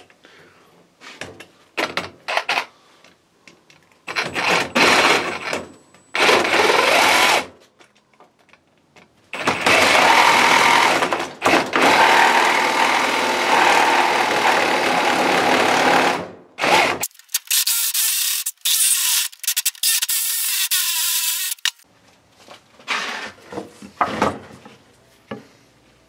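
Cordless reciprocating saw cutting into a thick timber beam in several runs, the longest lasting about eight seconds, then a thinner, higher-pitched stretch. Short knocks and clicks come between the runs.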